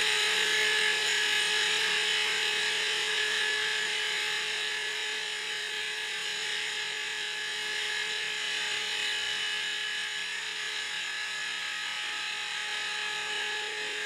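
Phalanx close-in weapon system gun mount powered up: its drive motors give a steady high-pitched whine over a hiss, getting slightly quieter as it runs.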